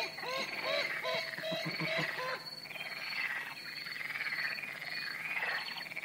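Purple swamphen calling: a quick run of short rising-and-falling notes for the first two seconds or so, then longer, rougher calls. Behind them a high chirp repeats about twice a second.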